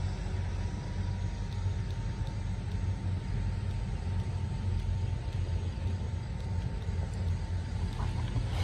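Electric fish-shocking machine (an 8F electrofishing unit) running with its poles in the water: a steady, flickering low electrical buzz with a thin, faint whine above it.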